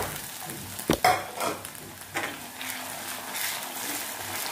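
Cornflour-coated onion slices frying in hot coconut oil in a wok, sizzling steadily while a spoon stirs them, with a few sharp clinks of the spoon against the pan, the sharpest about a second in.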